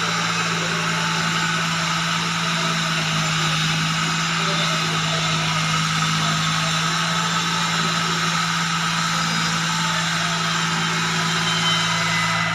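Small tracked excavator's diesel engine running at a steady pitch while it digs out earth.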